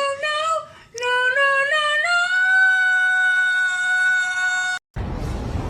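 A high singing voice runs through short stepped notes, breaks off briefly, climbs again and holds one long note that cuts off abruptly about five seconds in. A noisier, unpitched sound follows at the very end.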